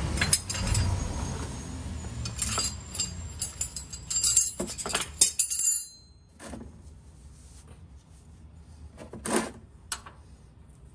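A metal combination wrench clinking and rattling as it is handled, dense for the first six seconds, then quieter, with a single louder knock about nine seconds in as the wrench is fitted onto the oil pan drain plug.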